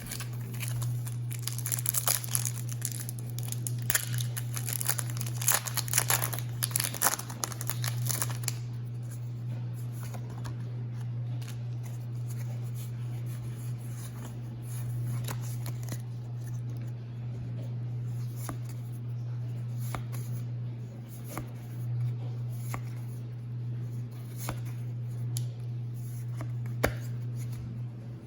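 Foil wrapper of a Pokémon booster pack crinkling and tearing open for the first eight seconds or so, then scattered soft clicks and slides as the trading cards are handled. A steady low hum runs underneath.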